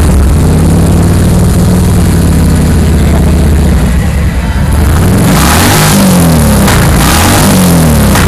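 Harley-Davidson V-twin engine running loud through its exhaust, holding a steady low note at first, then revved in several quick blips from about five seconds in.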